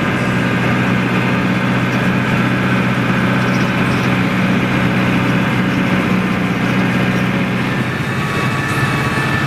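Engine of an ATV trail-grooming rig running steadily under load, heard from inside the cab as it tows a Sure-Track groomer over a snow trail. The engine's tone shifts slightly about eight seconds in.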